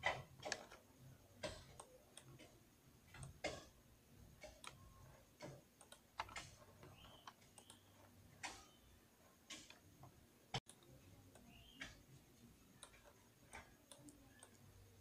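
Faint, irregular clicking of a computer mouse and keyboard keys, roughly one or two clicks a second.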